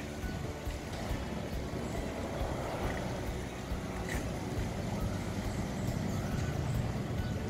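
Saen Saeb canal express boat's diesel engine running with a steady low rumble as the boat manoeuvres to turn around in the narrow canal.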